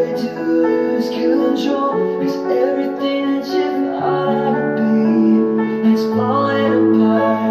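Background music: a slow song with held keyboard chords and a singing voice.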